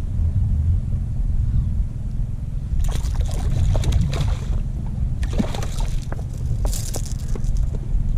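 Wind rumbling on the microphone, with bursts of splashing and sloshing water about three seconds in, again around five and a half seconds, and near seven seconds: a freshly hooked fish thrashing in shallow water.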